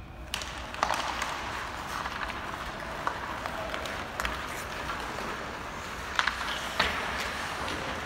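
Ice hockey play: skates scraping on the rink ice, with a few sharp clacks of sticks and puck, the loudest near the end.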